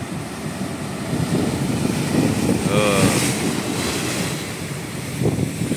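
Sea waves breaking and washing over volcanic rock shoreline, swelling to a loud splash about three seconds in, with wind buffeting the microphone. A short wavering voice-like call sounds just before the splash peaks.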